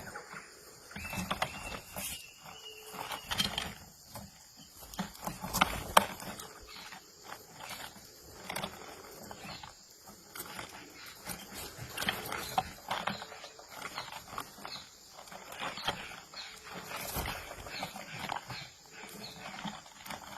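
Birds chirping and calling in short, irregular sharp notes, with one held high whistle a second or two in.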